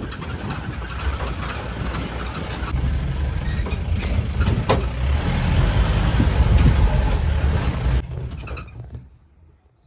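Safari vehicle driving, its engine and road noise rumbling heavily, with a sharp knock about halfway; the sound drops away suddenly about 8 s in and fades to quiet.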